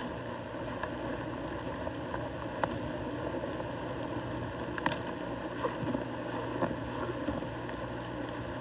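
Faint snaps and rustles of an elk tearing at pine branches to eat the needles, a few sharp ones spread through the middle of the clip, over a steady rushing background noise.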